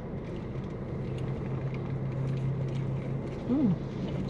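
Steady low hum of an idling car engine, with faint rustling and clicking and a short hummed vocal 'mm' about three and a half seconds in.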